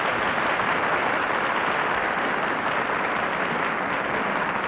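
Studio audience applauding, a steady, even clapping.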